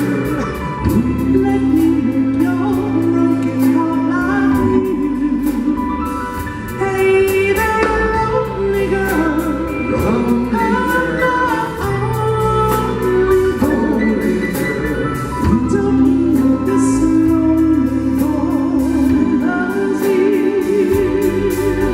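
Soul ballad played by a band, with long held notes, some of them wavering, over a steady sustained bass and a voice singing without clear words.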